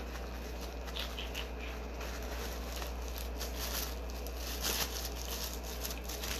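Thin plastic bib crinkling and rustling as it is unfolded and pulled on over the head, loudest about four and a half seconds in.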